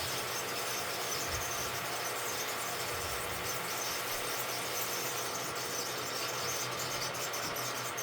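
Rockwell wood lathe running at a steady speed with an oak bat blank spinning on it, giving a steady low hum under a continuous even hiss from work on the turning wood.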